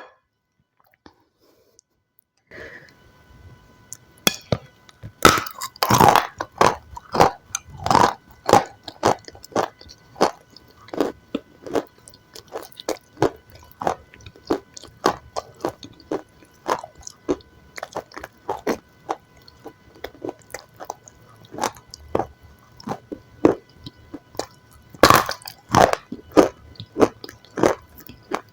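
Close-miked eating of crunchy food: crisp bites and steady crunchy chewing, several crunches a second, starting about two and a half seconds in, with a few louder bites along the way.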